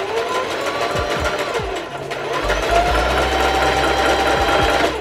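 Singer Heavy Duty electric sewing machine running, stitching hair wefts onto a wig cap. The motor whine speeds up, eases off about two seconds in, then runs faster and louder again before stopping suddenly at the end.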